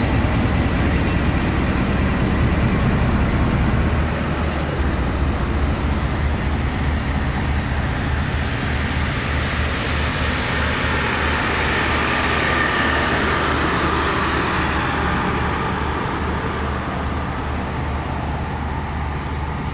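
Departing diesel-hauled passenger train: coaches rolling over the rails with a continuous rushing, clattering track noise and a steady low engine hum, swelling about midway and slowly fading.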